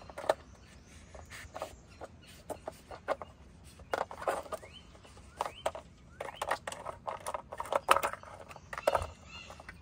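Irregular clicking and clacking of a plastic treat-puzzle board's cups and lids as a coati noses and paws at them to get at hidden treats.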